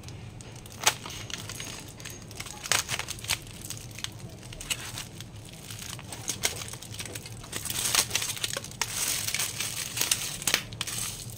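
Aluminium foil and a plastic bag crinkling as a food parcel is handled, twisted shut and bound with a rubber band: irregular rustles and crackles, busiest toward the end.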